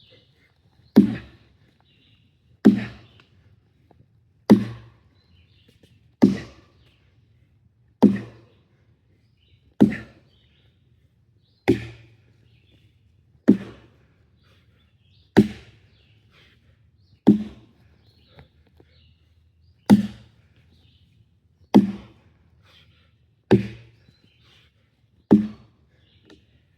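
An axe chopping wood: about fourteen sharp, heavy strikes at a steady pace of roughly one every two seconds, with one slightly longer pause partway through.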